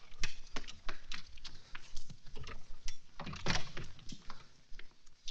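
A quick, irregular run of knocks and taps, several a second, with a louder thump about three and a half seconds in.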